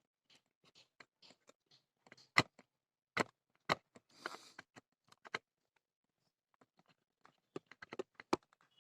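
Small sharp clicks and knocks of a screw and screwdriver as the mounting screw of a newly fitted TDA2030 amplifier IC is put in and tightened, with a short scraping rustle about four seconds in.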